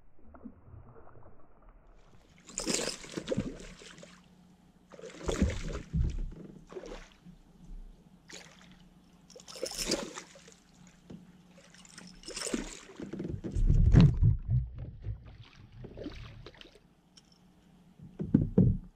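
Hooked bass splashing and thrashing at the water surface while being played to the boat, in about six separate bursts, the heaviest near two-thirds of the way through.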